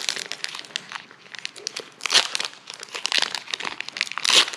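Foil wrapper of a Pokémon TCG booster pack being torn open and crinkled by hand, with louder bursts of crackling about two seconds in and near the end.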